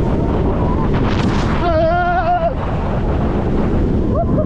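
Steady wind rush and rumble from a moving roller coaster ride, with a rider's voice held in a short shout about two seconds in.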